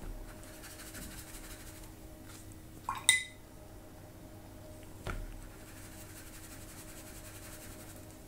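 Paintbrush clinking against a hard dish while watercolour is mixed: faint taps, one sharp ringing clink about three seconds in and a duller knock about two seconds later.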